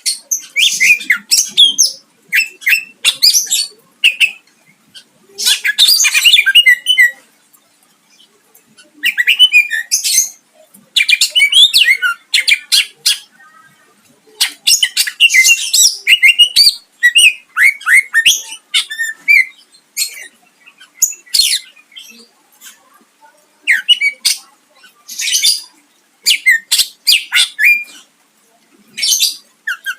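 Cucak ijo (greater green leafbird) singing loudly in bursts of fast, varied high-pitched phrases and rapid trills, with short pauses between bursts; the song is full of mimicked phrases of other birds.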